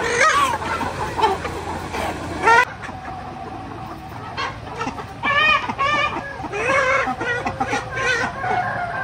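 A flock of chickens clucking, a string of short calls that often overlap.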